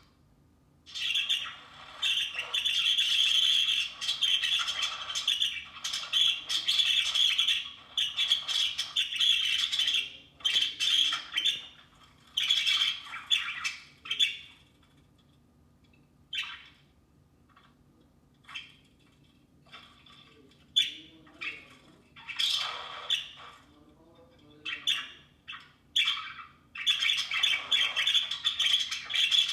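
Pet budgies chattering and squawking: a long run of dense chatter, then shorter bursts with quiet gaps between them, and dense chatter again near the end.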